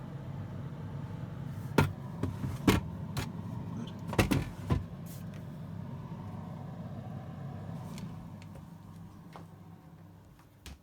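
Fridge freezer's cooling fan running with a steady low hum, broken by a few sharp knocks about two to five seconds in; the hum fades away near the end.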